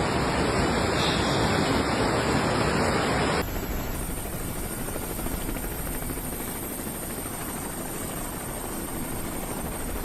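Floodwater rushing as a steady, loud roar of noise. About three seconds in it cuts to a quieter, steadier rushing noise.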